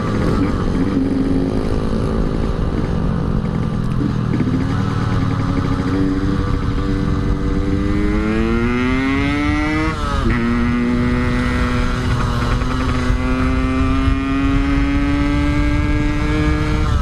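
Yamaha RX-King's two-stroke single-cylinder engine on the move, with wind rumble. The engine note climbs steadily through a gear, drops sharply at a gear change about ten seconds in, then holds a steady cruising note.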